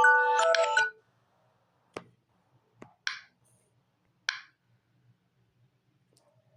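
Samsung Galaxy Tab A9 alarm tone from the tablet's speaker: a bright, mallet-like melody of several notes that cuts off about a second in. A few faint clicks and two short hissy blips follow.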